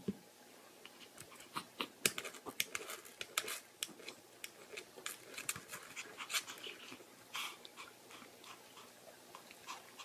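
Small dogs, a Pomeranian and a toy poodle, panting close by, with a run of quick, irregular clicks.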